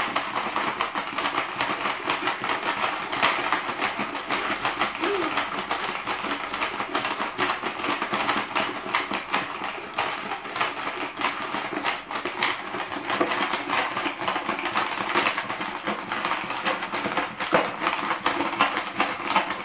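Hungry Dino marble-grabbing game, a Hungry Hungry Hippos-style plastic board game, in play: several players press the dinosaurs' levers over and over, giving a fast, continuous clatter of snapping plastic jaws and small plastic balls rattling across the board.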